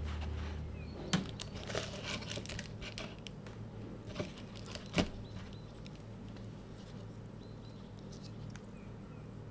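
Plastic nursery cup and paper sleeve being handled: crinkling with a cluster of light clicks in the first few seconds, then two sharp taps about four and five seconds in. A steady low hum runs underneath.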